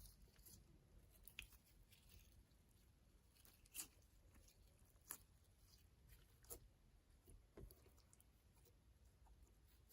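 Faint, sparse sticky clicks and pops of slime being pressed and pulled by hand, a few seconds apart.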